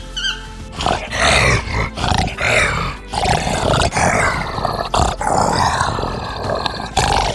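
An animal growling and roaring in a run of loud, rough calls, each lasting about a second with short breaks between them.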